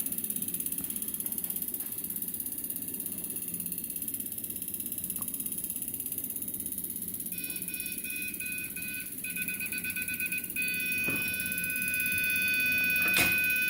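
Digimaster injector tester's beeper starts sounding about seven seconds in with broken, high beeps, then settles from about ten and a half seconds into one straight continuous beep. This is the signal that the Siemens piezo injector has been tightened to the correct point and its assembly calibration is done. A single knock comes shortly before the end.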